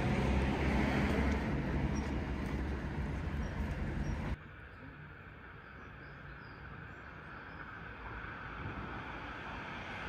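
Outdoor street noise: a loud low rumble for the first four seconds or so, then an abrupt cut to a much quieter, steady outdoor background.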